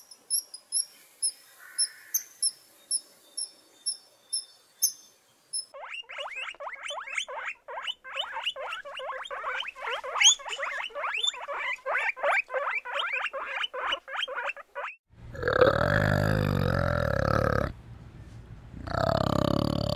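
High thin chirps about twice a second, then guinea pigs squeaking in a quick run of short calls, about four or five a second. Near the end, a male orangutan gives a loud, deep grumbling call with a short break in the middle.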